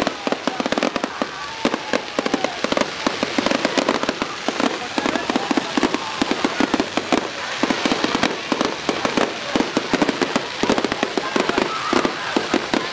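Fireworks display: a dense, unbroken run of bangs and crackles, several a second.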